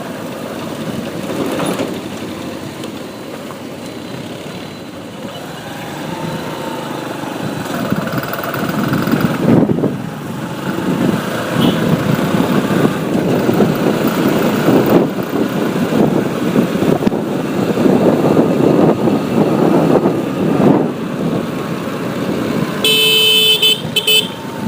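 Road traffic heard while riding a motorbike: a steady engine, wind and tyre rumble with passing vehicles, growing louder about halfway through. A vehicle horn honks for about a second and a half near the end.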